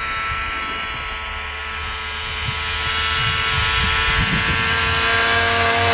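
Snowmobile engine running at a steady high pitch as the machine approaches, getting gradually louder, with wind rumbling on the microphone.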